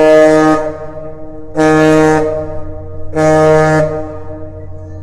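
The freighter Manitoulin's ship horn sounding the captain's salute: the end of one long blast, then two short blasts about a second and a half apart.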